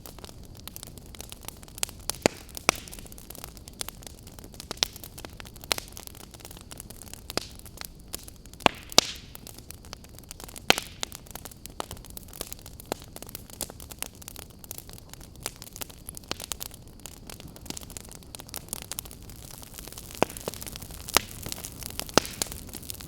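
Wood campfire crackling: a steady low hiss with frequent sharp, irregular pops and snaps, a few of them loud.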